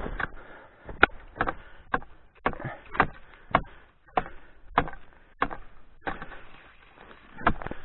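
Footsteps crunching through snow and dry reeds: a string of short, sharp crunches, about two a second.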